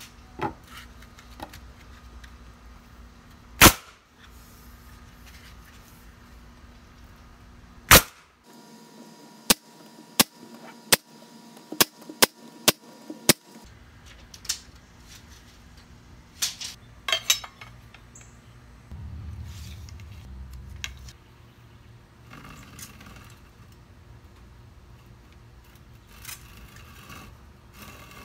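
Finish nailer firing into trim: two loud sharp shots about four seconds apart, then a run of about eight quieter sharp clicks roughly half a second apart, followed by scattered knocks and handling noise.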